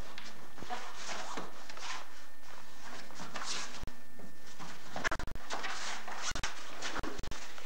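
Scuffling of two men grappling on foam mats: irregular shuffles, rubs and soft thuds of bodies and feet shifting, over a steady hiss, with several sudden brief dropouts in the sound.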